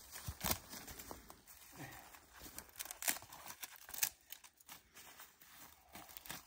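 Dead branches and sticks being handled and set down on a dry forest floor: scattered sharp knocks and cracks, the loudest about half a second, three and four seconds in, among rustling of dry twigs and pine needles.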